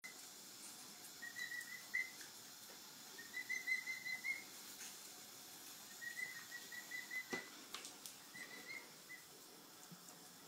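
Young emu whistling: four short runs of quick, high, even peeps, all at one pitch. A single sharp knock comes about two-thirds of the way through.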